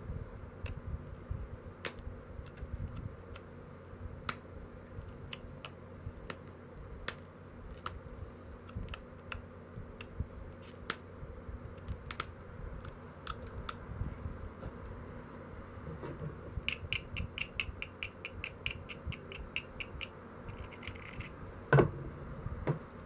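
A stone biface knife is being pressure-flaked with a hand-held antler flaker, giving scattered sharp clicks and ticks as small flakes snap off the edge. Near the end comes a quick run of ticks, about five a second, as the edge is rubbed with a small abrading stone, then one louder knock.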